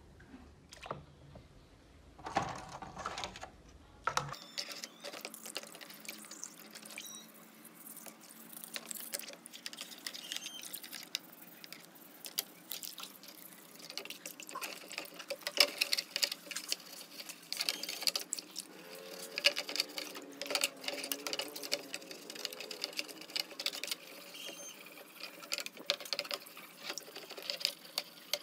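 A toothbrush scrubbing a black plastic MacBook lid in a tub of water: fast, scratchy bristle strokes with splashing and dripping.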